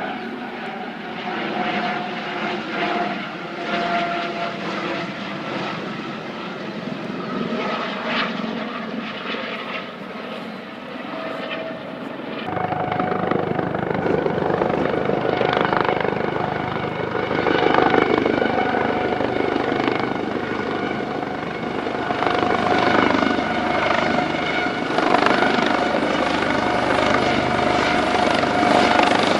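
Coast Guard helicopter coming in to land: rotor noise with a steady high whine. About twelve seconds in it turns suddenly louder, with a deeper rumble added.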